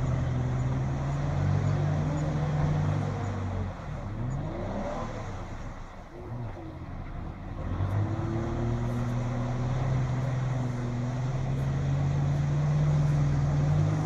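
Off-road SUV's engine pulling under load as it ploughs through a flooded creek, held at steady revs, sagging and wavering for a few seconds near the middle, then climbing again. Water splashes around the wheels.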